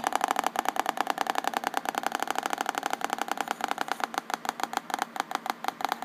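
HP Compaq Presario F500 laptop speaker popping by itself in a rapid, steady train of clicks, with nothing touching it. The technician takes it for a grounding fault, which he traces to a speaker wire shorted where a case screw pinched it.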